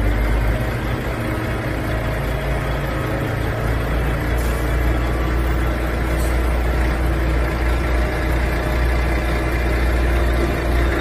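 Heavy diesel engine running steadily, a low rumble with a faint steady whine above it.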